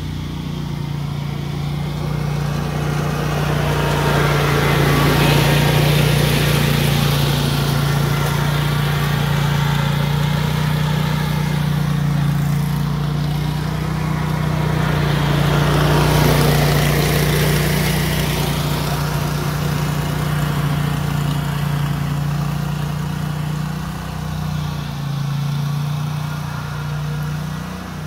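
A Beast zero-turn riding mower's engine running steadily as it tows a lawn sweeper across the grass. It grows louder twice, about five seconds in and again around sixteen seconds, as the mower comes close.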